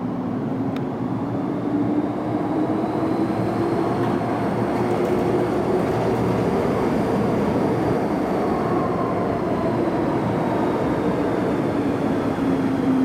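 Hong Kong MTR metro train running through the station without stopping, heard through platform screen doors. A steady rumble of the train on the rails grows louder over the first couple of seconds, with a motor whine that slowly rises in pitch and then falls.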